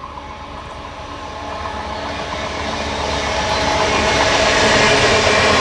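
Diesel-hauled passenger train approaching, the rumble of its locomotive and wheels on the rails growing steadily louder.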